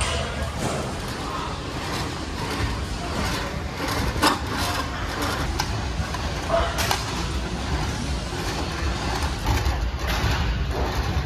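Busy gym background: a steady din with indistinct voices and a few sharp knocks, the clearest about four and seven seconds in.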